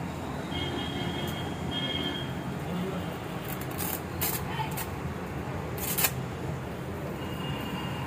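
Velcro-edged mosquito net being pulled and pressed onto a balcony window grille: several brief scratchy rasps about halfway through and a sharper one a couple of seconds later, over a steady low rumble.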